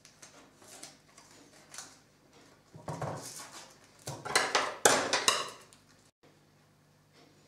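Brown packing tape pulled off its roll in several loud, harsh rips, after light taps and rustles of hands pressing masking tape onto wood; the ripping cuts off suddenly.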